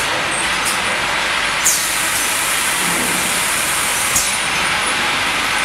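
Automatic inline piston filling line running with a steady mechanical noise. Two short, sharp high hisses come through, one about two seconds in and one about four seconds in.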